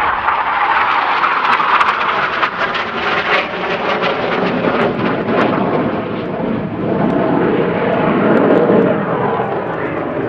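Steady jet noise from a BAE Hawk T.Mk.1 trainer's Adour turbofan as it flies its display. The sound shifts deeper over the second half.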